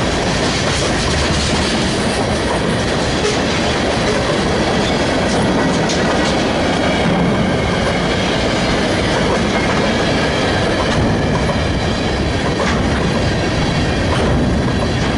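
Railroad cars rolling past close by in a steady, loud run of wheel noise, with scattered clicks as the wheels cross rail joints.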